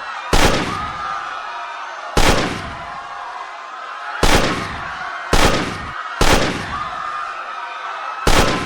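Six gunshots fired at uneven intervals of one to two seconds, each with a short echoing tail, over a continuous din of a panicked crowd shouting.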